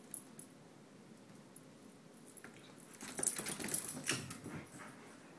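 Two dogs playing: after a quiet start, a flurry of scuffling and dog noises begins about three seconds in and dies down after about two seconds.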